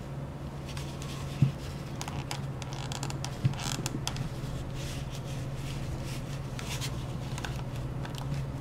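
Handling noise from a phone in a rubberized snap-on case: fingers rubbing and scraping on the case, with two sharp clicks about one and a half and three and a half seconds in, over a steady low hum.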